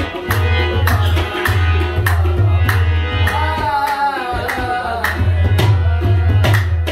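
Qawwali music: harmonium and tabla playing with a steady rhythm of drum strokes, and a voice singing a held, wavering line about halfway through.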